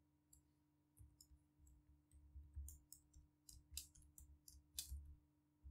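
Faint typing on a computer keyboard: about a dozen light, irregular key clicks over some four seconds, starting about a second in, as a name is typed into a text field.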